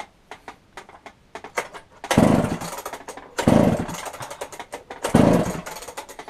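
Two-stroke chainsaw engine cranked by its pull-cord recoil starter, three hard pulls each turning the engine over in a rattling whirr that dies away, without the engine catching: a hard-starting saw. Light clicks and knocks come before the first pull.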